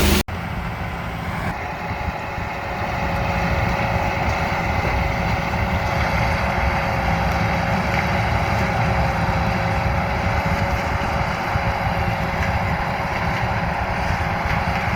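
Combine harvester running steadily while harvesting corn: a constant low drone with a couple of steady whining tones above it, starting abruptly right at the beginning.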